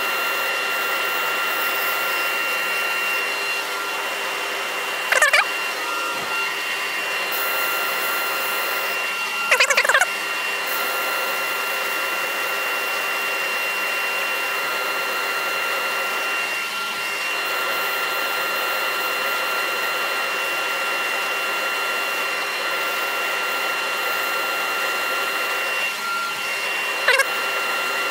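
Dust extractor running steadily beside a slowly turning lathe while 120-grit abrasive is held against the inside of a wooden bowl, giving a steady whir and hiss. Three brief, louder scratchy rasps come about five, ten and twenty-seven seconds in.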